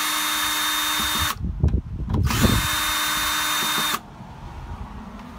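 Drill-driver running twice, each time for about a second and a half, backing out the screws that hold the electric starter onto a Tecumseh lawnmower engine, with a few light knocks of handling between the runs.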